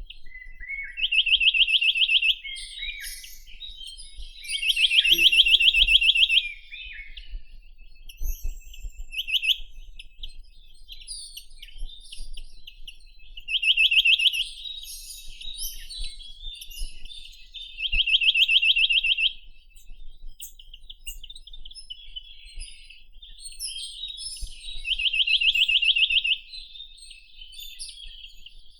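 Chinese nuthatch (Sitta villosa) singing: fast, even trills of rapidly repeated high notes, each about a second long, given about six times at intervals of a few seconds, with fainter scattered chirps between.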